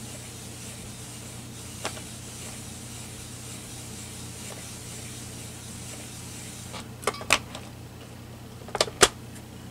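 Hands working a stamping platform: a low steady hiss and hum while a rubber stamp is pressed onto paper, then several sharp clicks and taps near the end, the two loudest close together, as the clear acrylic plate is handled and lifted off.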